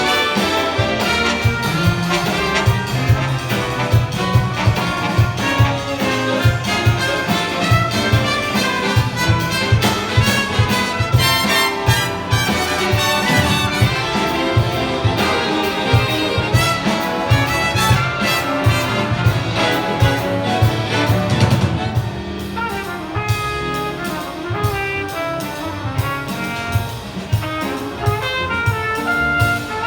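Big band playing jazz: full brass section of trumpets and trombones with saxophones over a drum kit keeping a steady beat. About two thirds of the way through the full ensemble drops back to a lighter, quieter texture.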